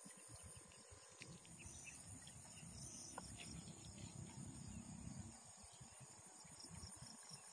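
Near silence: a faint steady high insect buzz, with a low uneven rumble of wind on the microphone that swells in the middle and drops away about five seconds in.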